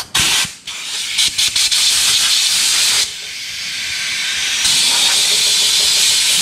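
Compressed-air blow gun hissing steadily as it blows sanding dust off a freshly sanded gelcoat repair on a fibreglass boat hull; the blast eases about three seconds in and grows stronger again near five seconds.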